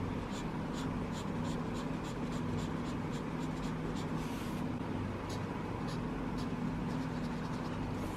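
Faber-Castell Connector felt-tip pen scratching across paper in quick short strokes, a few a second, as colours are swatched; a steady low hum underneath.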